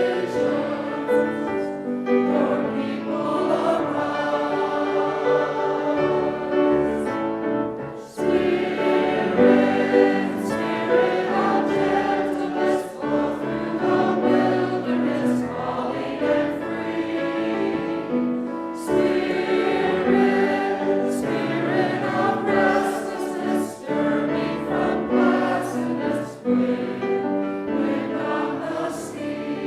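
A choir singing in several parts, with brief pauses between phrases about 8 and 19 seconds in.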